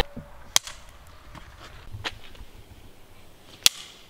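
Film clapperboard sticks snapping shut, three sharp claps about a second and a half apart, the first and last the loudest.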